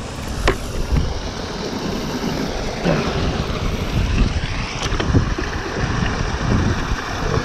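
Water sloshing and splashing as a container is dipped and filled, with wind buffeting the microphone.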